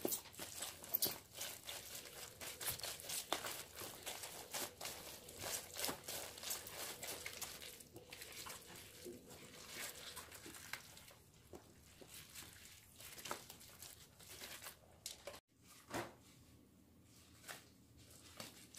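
Gloved hands working chili paste into salted napa cabbage leaves and packing the halves down: faint wet squishing with a crisp crinkling and crackling of the leaves, with a short break about fifteen seconds in.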